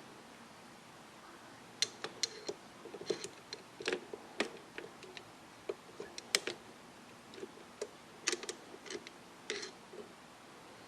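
Irregular light clicks and taps of small metal parts being handled, from about two seconds in until shortly before the end, as the tuning-dial drive mechanism is worked onto the chassis of a Hallicrafters SX-100 receiver.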